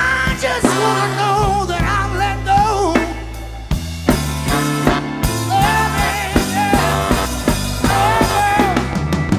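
Soul band playing a slow ballad live: drum kit, bass and keyboard chords under a lead melody line with a wide vibrato.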